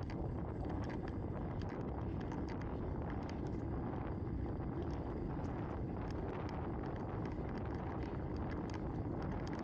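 Steady wind noise on the microphone of a bicycle-mounted camera while riding, mixed with tyre noise on asphalt and scattered light ticks.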